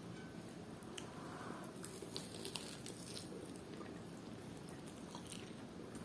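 Chewing and biting into a fried chicken coxinha with catupiry filling: soft mouth sounds with scattered small clicks.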